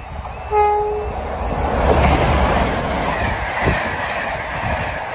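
A short, single-note horn blast from a pair of class 47 diesel locomotives about half a second in. The locomotives then pass close by at speed, engines running and wheels rumbling, and the coaches roll past after them.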